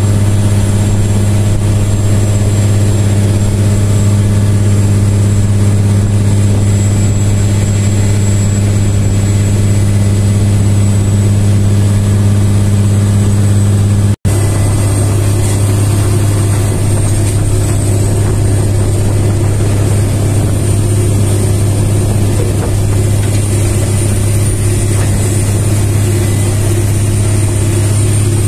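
Heavy construction machinery's diesel engine running steadily: a loud low drone with a thin high whine above it. It cuts out for an instant about halfway through.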